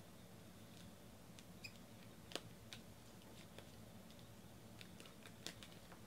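Near silence: low steady room hum with a few faint, scattered clicks and ticks.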